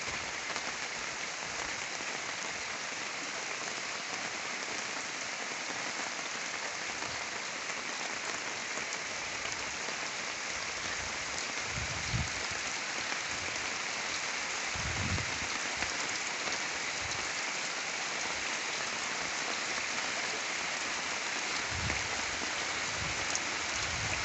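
Steady hiss of water, like rain or running flood water, with a few dull low thumps near the middle and again near the end.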